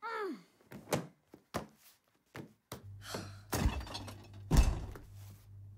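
A woman's short falling grunt of annoyance, then a run of knocks and clatter as a kitchen refrigerator is opened and rummaged through. A low hum comes in about three seconds in, and two heavy thunks in the middle are the loudest sounds.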